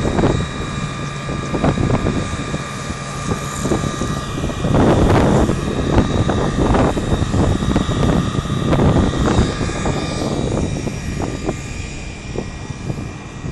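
Fire engine's engine and water pump running steadily: a drone carrying several steady whining tones. A louder rush of noise swells about five seconds in.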